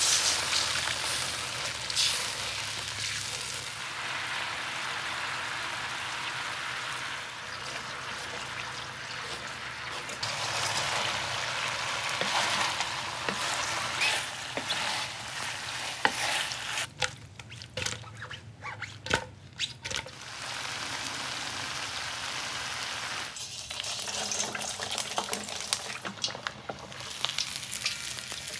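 Hot oil sizzling as food fries, with a spatula stirring and scraping in a metal pan. About halfway through, the sizzle drops away for a few seconds of clicks and knocks, then comes back.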